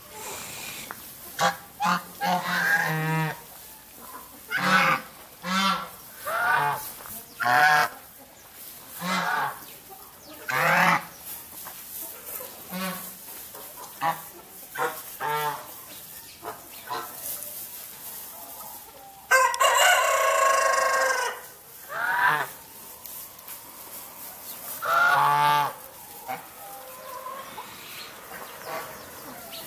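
Orpington chickens calling: a string of short, pitched squawks, roughly one a second. About two-thirds of the way through, one louder two-second call stands out, a rooster crowing.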